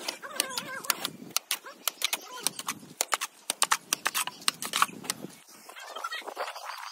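Steel plastering trowel clinking and scraping against a metal mortar pan and slapping cement mortar onto a concrete-block wall: an uneven run of sharp clicks and knocks, quickest about three and a half to five seconds in.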